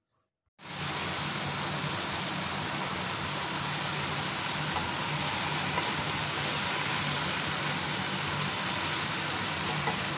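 Tofu and green beans sizzling as they are stir-fried in a wok: a steady hiss that starts abruptly about half a second in.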